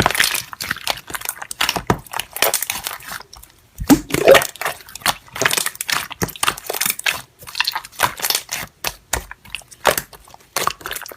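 Slime being pressed and squished by hand, giving a dense, irregular run of small sticky clicks and pops.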